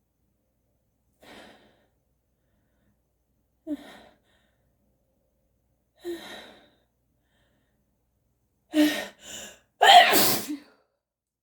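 A person building up to a sneeze: three short catching in-breaths a couple of seconds apart, then two quick gasps and one loud sneeze near the end.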